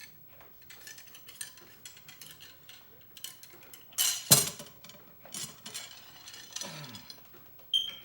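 Cleaning rod pushing a patch down a muzzleloader barrel: rubbing strokes and metallic clinks, with a loud clank about four seconds in and a short ring near the end.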